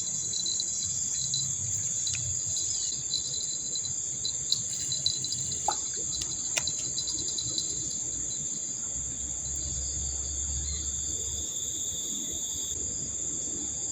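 Steady chorus of insects: several high, even drones at different pitches, one of which stops near the end, with a few faint clicks.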